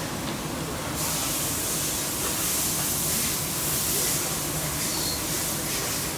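NC lathe running with cutting coolant spraying: a steady hiss over a low machine hum. The hiss drops away briefly at the start and comes back about a second in.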